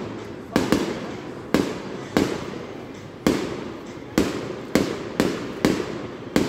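Aerial firework shells bursting one after another, about ten sharp bangs in quick succession, each dying away before the next.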